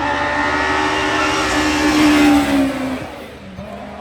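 VW Polo hillclimb race car passing at high revs under full throttle, growing louder about two seconds in, then its engine note drops in pitch and fades.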